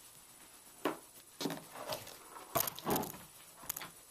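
Handling noises: a few soft knocks and rustles of a fabric quilt block and a steam iron being moved about on a pressing board, with the loudest cluster in the second half.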